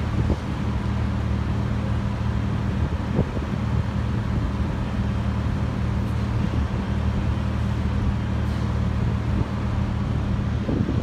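Heavy construction machinery engine running steadily, a low even hum under a wash of wind noise; the hum drops out just before the end.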